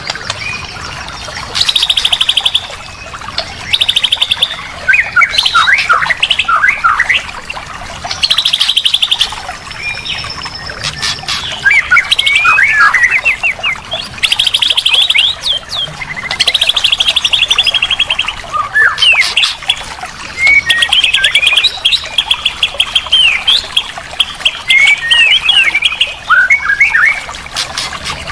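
White-rumped shama (murai batu) singing a varied, richly filled song: fast rattling trills alternate with quick sweeping whistled notes, in short loud phrases one after another with brief pauses.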